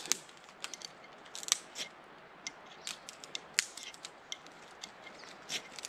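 Quick, irregular scrapes and clicks of a fire starter struck over and over, throwing sparks at cotton balls that have not yet caught.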